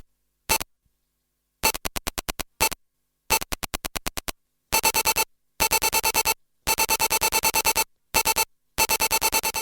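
Electronic buzzing pulses, about a dozen a second, in stuttering bursts that switch on and off abruptly with short silences between; the bursts get longer and more continuous in the second half.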